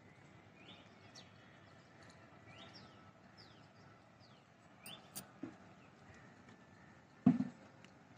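Birds chirping: a string of short, high, falling calls over a faint steady outdoor background. A single short thump about seven seconds in.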